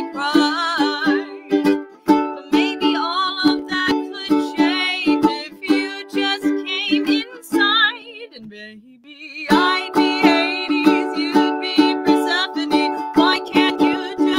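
Ukulele strummed in a steady rhythm with a woman singing over it. About eight seconds in, the strumming stops for a second or so, then picks up again.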